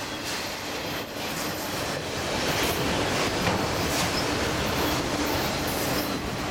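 Freight train of autorack cars rolling past close by: a steady rumble of steel wheels on rail with repeated clicks, swelling over the first couple of seconds and then holding steady.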